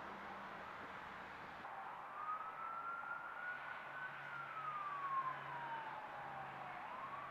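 Emergency-vehicle siren in a slow wail. The pitch climbs, then falls gradually over several seconds and starts to climb again near the end, over a steady background hiss.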